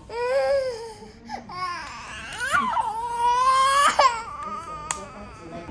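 A young child crying in high-pitched wails: a short wail, then a longer one from about a second and a half in that rises in pitch and breaks off at about four seconds.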